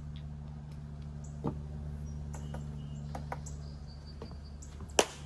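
A few faint clicks and small knocks of handling over a steady low hum, then one sharp click near the end as the animatronic ghost is powered up.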